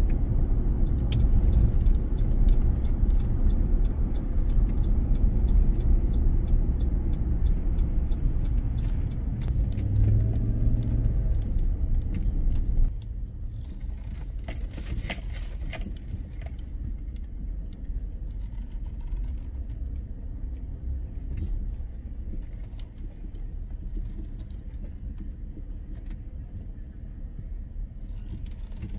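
Road noise heard inside a moving car: a steady low rumble of engine and tyres with light jingling clicks over it. About halfway through the rumble drops to a quieter level, and a brief burst of jingling follows.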